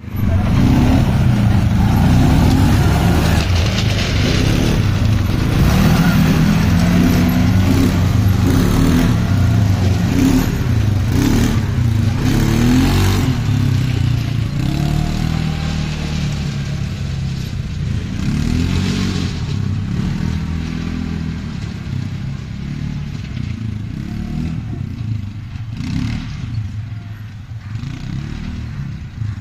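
CFMOTO ZForce side-by-side UTV engine revving up and down as the vehicle pulls away and drives off, fading over the second half as it gets farther away.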